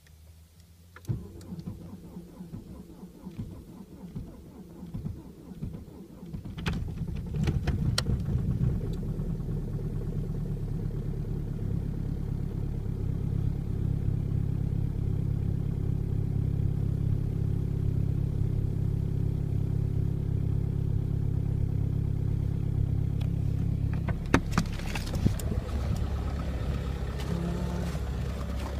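Volkswagen Passat 1.9 TDI AVF four-cylinder turbodiesel cold-started at −8.5 °C with its glow plugs not working. The starter cranks for several seconds before the engine catches and settles into a steady idle. A few clicks and knocks come near the end.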